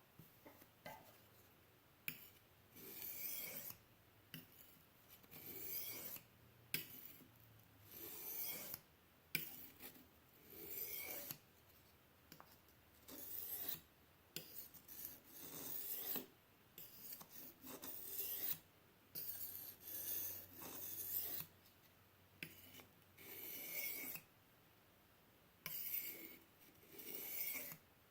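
Pocket-knife blade drawn across a fine sharpening stone wet with honing solution, repeated strokes about one every one to two seconds, each a short hissing scrape.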